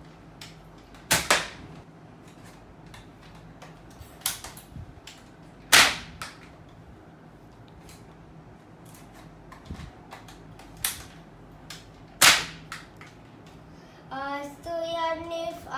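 Nerf foam-dart blaster firing three times, each a sharp pop, about four and a half and six and a half seconds apart, with small clicks of handling and dart loading between the shots.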